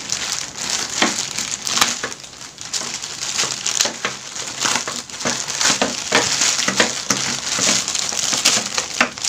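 Plastic courier mailer bag and inner plastic wrapping handled and torn open by hand: irregular crinkling and crackling throughout.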